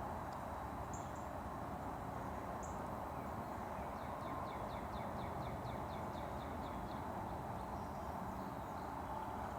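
Steady outdoor background noise, with a run of about a dozen quick, evenly spaced chirps from a small animal midway through, lasting about three seconds.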